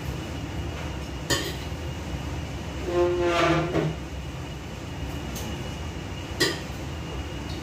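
Cookware being handled at a kitchen counter: two sharp clinks of pots or dishes, over a steady low hum. About three seconds in, a brief pitched tone that bends slightly is the loudest sound.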